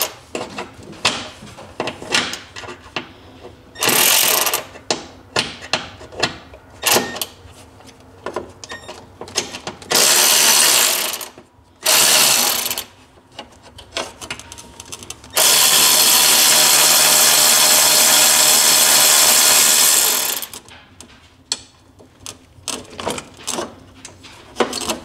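Brushed-motor cordless 3/8-inch electric ratchet spinning snowmobile bumper bolts out. It runs in short bursts of about a second, three times, then in one longer run of about five seconds past the middle. Between runs come short clicks and knocks of the tool and bolts being handled.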